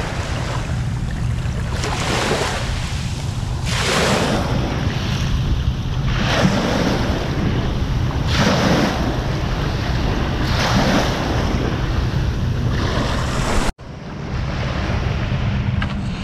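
Sea waves washing onto a beach, swelling and falling back about every two seconds, with wind rumbling on the microphone. The sound cuts out for an instant near the end.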